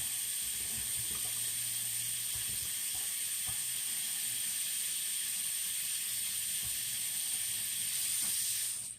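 A freshly rebuilt faucet running hot water in a steady stream, shut off suddenly near the end.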